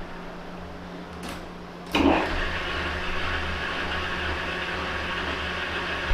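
Metal lathe running with a steady motor hum at about 600 rpm. About two seconds in, the CNMG carbide insert bites into the spinning hydraulic piston rod and a steady cutting noise starts as it turns a chamfer.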